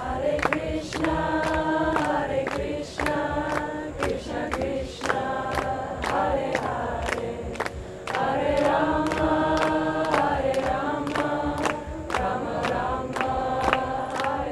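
A group of voices singing a kirtan chant together in held notes, phrase after phrase with short breaks, over a steady beat of about three sharp strikes a second.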